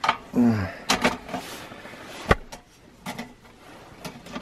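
Clicks and knocks from handling a Campingaz Camp'Bistro DLX portable gas stove, its control knob turned and its gas cartridge compartment opened, because the gas is running low; the sharpest click comes a little after two seconds in. A short low mumble is heard about half a second in.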